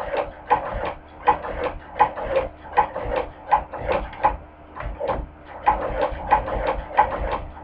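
Hand-crank cobbler's sewing machine stitching, a steady rhythmic clacking of the needle mechanism at about one and a half stitches a second, with lighter ticks between.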